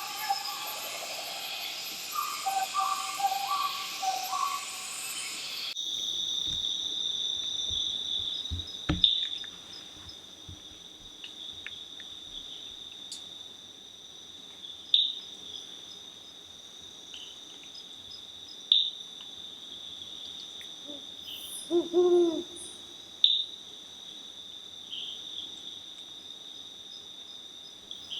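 Tropical forest soundscape. For the first six seconds a dense chorus of insects and birds calls repeatedly, then it changes abruptly to a steady high insect trill with a few sharp clicks. About twenty-two seconds in, a low hooting call sounds twice in quick succession.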